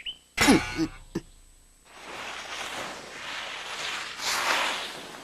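A short burst with a falling pitch about half a second in, then a hissing whoosh that swells and fades several times: a toy racing car skidding across an ice rink.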